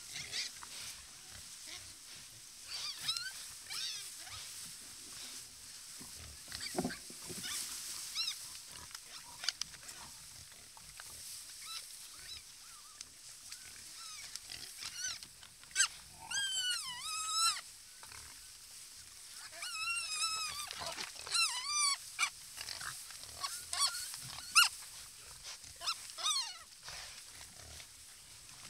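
Wild boars squealing in short bouts of high, wavering calls, the longest runs a little past halfway and again about two-thirds through, with a few soft knocks between.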